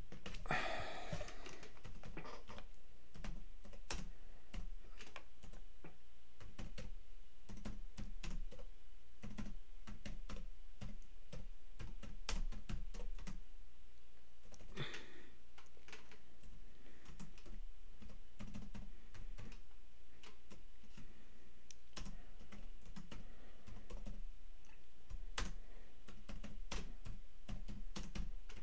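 Computer keyboard being typed on in irregular spurts of keystrokes and clicks, with pauses between. A short rush of noise comes about a second in and another near the middle.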